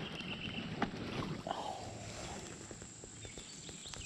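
Light clicks and knocks from handling a baitcasting rod and reel in a kayak, one sharper click a little under a second in, over faint steady outdoor background noise.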